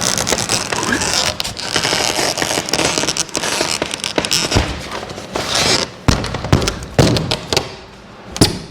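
Rigid foam insulation panel scraping and crackling against a metal garage door panel as it is worked into place, then several sharp knocks in the last three seconds as it is pushed home.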